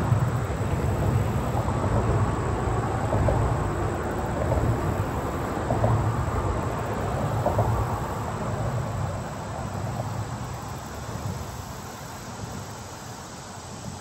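Insects, such as crickets, chirring steadily in a high thin tone, over a low rumble that fades away through the second half.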